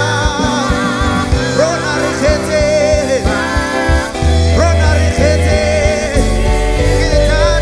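A live gospel worship band playing: voices singing a wavering melody over keyboard, bass guitar and drums, with steady drum strikes and sustained bass notes.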